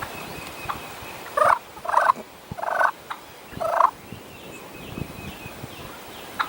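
Wild turkey gobbling: four loud, rattling calls in quick succession, starting about a second and a half in.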